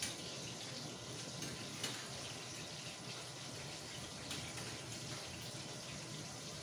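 Meat rolls (lumpia) shallow-frying in oil in a pan: a steady sizzle, with a few light clicks of a utensil against the pan.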